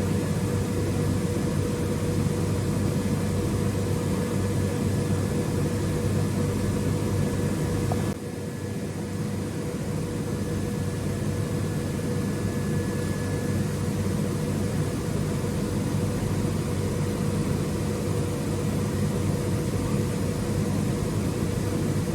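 Hermle C 400 U five-axis CNC machining centre running: a steady mechanical hum with several fixed tones. About eight seconds in the sound drops and thins, then builds back up over the following seconds.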